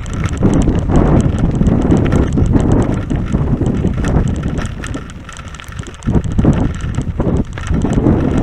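Wind buffeting the microphone over the rolling rumble of a 29er mountain bike's tyres on a rough farm track, with scattered clicks and rattles from the bike. The rumble eases briefly about five seconds in, then picks up again.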